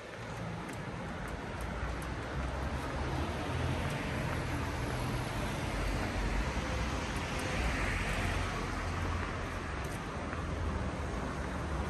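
Street traffic noise: cars driving past on a city road, with a steady low rumble and one vehicle's tyre noise swelling and fading about two-thirds of the way through.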